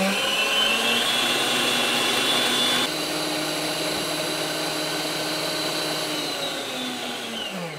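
Electric planetary stand mixer running, its whisk whipping egg whites to stiff peaks: a steady motor whine that is just spinning up at the start, turns abruptly quieter about three seconds in, and winds down with falling pitch near the end as it is switched off.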